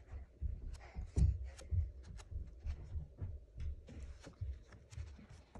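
A paper album being handled and its pages turned: irregular light taps and rustles with soft low thumps.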